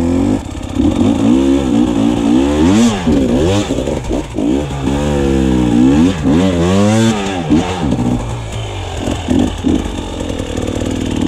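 A 300 cc two-stroke enduro motorcycle being ridden off-road, its engine revving up and down over and over as the throttle is opened and shut, with some clatter.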